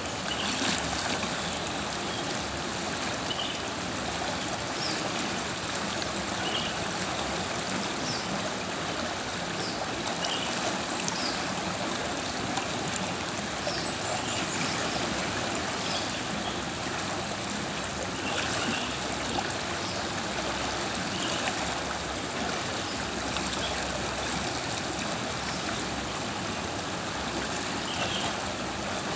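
River water flowing and babbling steadily over rocks, with faint short high chirps scattered through it.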